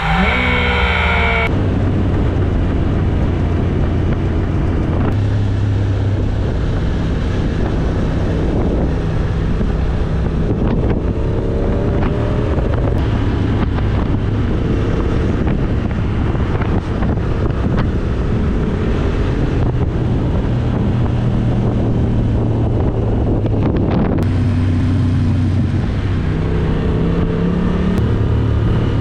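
Motorcycle being ridden at speed: a steady engine drone under heavy wind noise on the microphone, the engine note shifting to a new pitch a few times.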